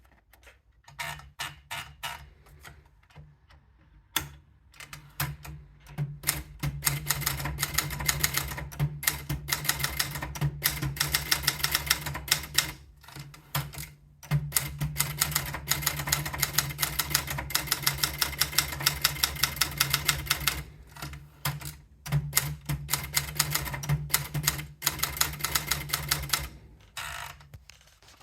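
Adler Gabriele 35 typewriter being typed on: quick runs of sharp key strikes coming in several bursts, with short pauses between them.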